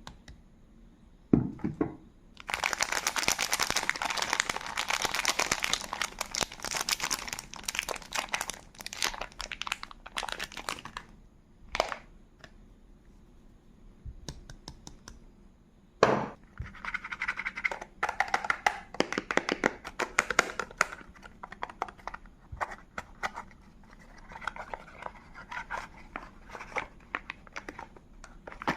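Soap wrapping being unpacked by hand: the wrapper crinkles and tears in long runs of rapid crackles. Two sharp thunks come through, one about a second in and one about halfway through, as the bar or its box is set down or knocked.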